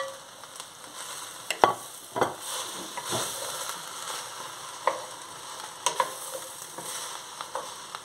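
Vegetables sizzling as they fry in a glazed clay cazuela while a wooden spoon stirs them, with scattered knocks of the spoon against the pot.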